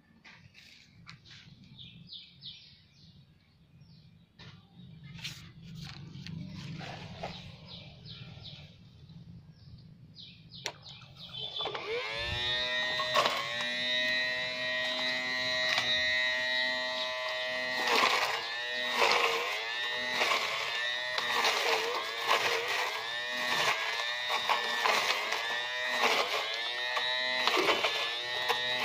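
Small 12-volt DC motor in a homemade PVC-pipe tool. After faint handling clicks, it starts about twelve seconds in and runs with a loud, steady whine. The pitch sags briefly every second or two, as if the motor is being loaded.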